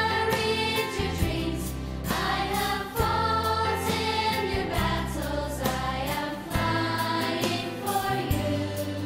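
Choral music: voices singing sustained notes, changing about once a second, over held low bass notes.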